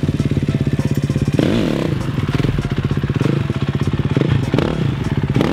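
Dirt bike engine running at low revs under light throttle while the rider holds a slow wheelie, its even firing broken by a few brief rises and falls in revs as the throttle is worked.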